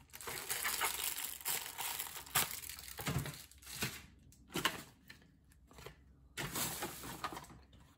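Plastic packaging and bags crinkling and rustling in irregular handfuls as items are picked up and sorted, with a couple of sharper crackles and a quieter pause partway through.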